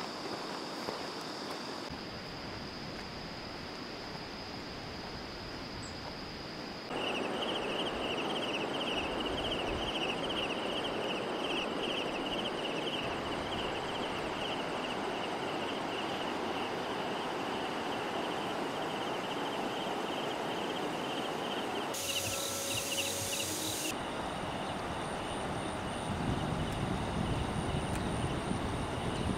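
Outdoor hillside ambience: insects trilling in a high, fast-pulsing drone over a steady rushing noise. The sound jumps at edits, about seven seconds in and again briefly near the two-thirds mark.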